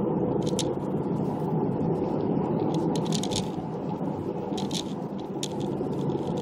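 Steady road and engine noise from inside a moving vehicle's cabin, with a few light clicks and rattles at irregular moments.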